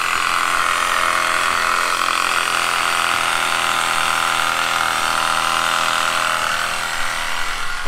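A power tool running steadily under load, cutting through tree roots in a drainage trench, and stopping near the end.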